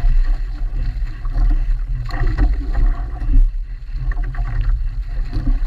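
Heavy low wind rumble on the microphone over water splashing and sloshing against a small boat's hull as a hooked sailfish thrashes alongside.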